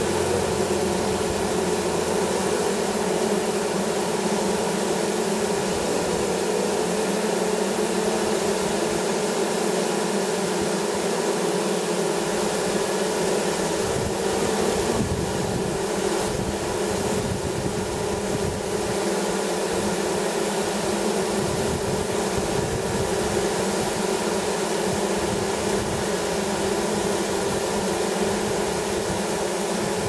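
Many honeybees fanning their wings together, a steady buzzing hum. The fanning signals that the queen has entered the hive.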